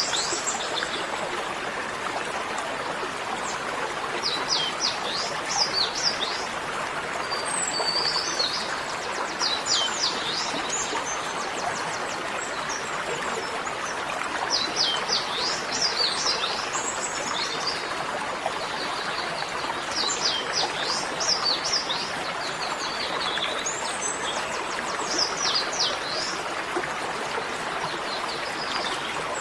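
Small birds chirping in short bursts of quick falling notes, a burst about every five seconds, over a steady rushing noise like running water.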